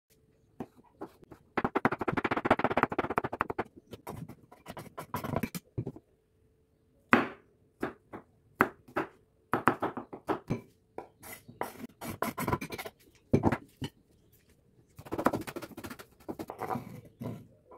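A spatula working a thick yogurt sauce in a bowl, then a kitchen knife cutting on a wooden cutting board: separate knocks as garlic cloves are cut, then a quick run of chopping strokes through chives near the end.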